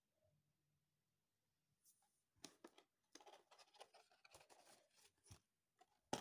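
Faint crinkling and scraping of a plastic inflatable swimming armband being handled, in an irregular run starting about two and a half seconds in, then a single sharp knock near the end.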